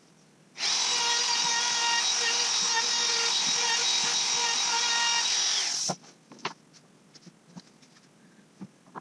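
Handheld trim router switched on and run at full speed, with a steady high whine, for about five seconds before it is switched off. Light handling clicks follow.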